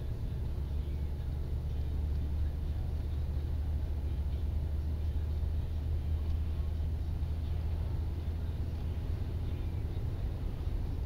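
Steady low rumble of engine and tyre noise inside a moving car, picked up by a dashcam's built-in microphone.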